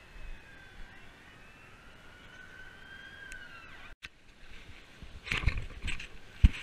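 Faint wavering whistle-like tones that glide slowly up and down, then, after a cut, the rustling and knocking of a body-worn action camera being handled, with one sharp thump near the end.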